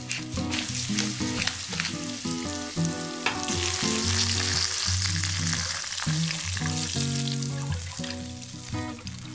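Sliced garlic frying in hot olive oil in a pan, a steady sizzle that grows louder about three seconds in, then water poured into the pan near the end, over background music.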